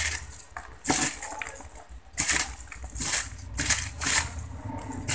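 Styrofoam (expanded polystyrene) pieces being squeezed and crumbled by hand in a plastic bowl: a series of short, scratchy squeaking rubs, about one a second.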